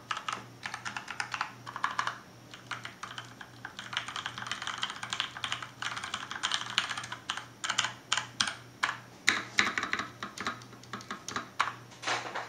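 Typing on a mechanical keyboard with Cherry MX switches, its rubberized feet raised: quick runs of keystroke clacks, with a short pause about three seconds in.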